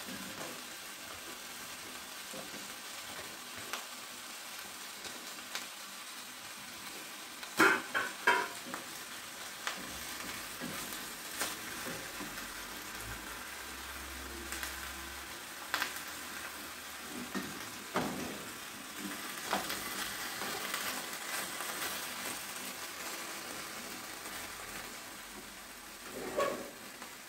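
Chopped mini cucumbers sizzling in a pan of hot olive oil with onion and garlic: a steady frying hiss. Now and then a short knock or scrape from the spatula against the pan.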